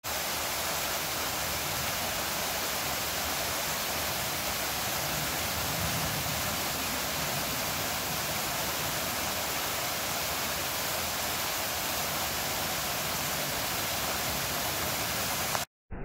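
A tall, narrow waterfall rushes steadily, an even hiss of falling water. It cuts off suddenly near the end.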